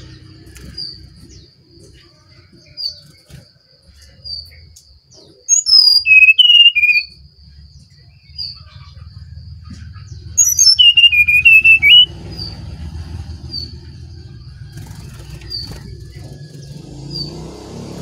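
Brown-chested jungle flycatcher (sikatan rimba dada coklat, SRDC) singing two loud phrases, each about a second and a half long, of whistled notes dropping from high to a lower warbled run. Between them a short high chirp repeats every second or two over a low background rumble.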